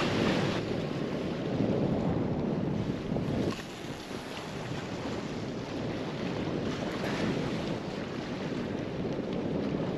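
Gale-force wind buffeting the microphone, over choppy sea water below the pier. The wind eases a little about three and a half seconds in.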